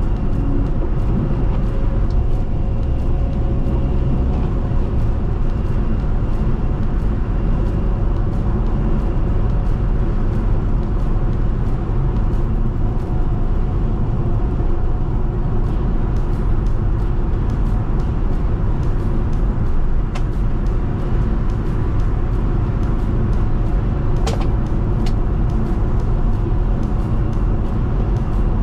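Steady road and engine rumble of a car driving on a snowy interstate, heard from inside the cabin, with scattered sharp ticks throughout and a couple of louder clicks near the end.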